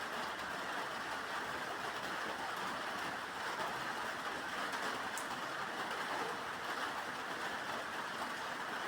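Steady rain falling, an even hiss with no drops or thunder standing out.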